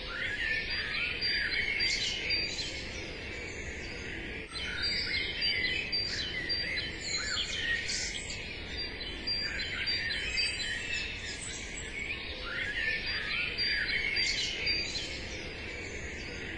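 Birdsong ambience: many small birds chirping and trilling over a steady low hiss.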